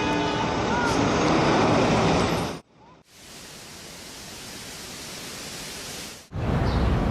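Steady rushing noise, like static or a waterfall, in three stretches: loud at first, cut off suddenly about two and a half seconds in, a quieter hiss for about three seconds, then louder again with more low rumble near the end.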